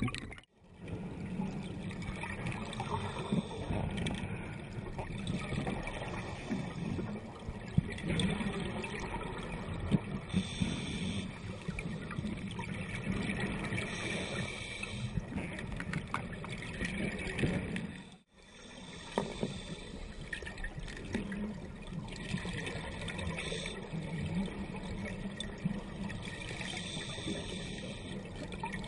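Underwater rush of scuba divers' exhaled bubbles from their regulators, swelling every two to three seconds with each breath. It cuts out briefly twice, about half a second in and again around eighteen seconds.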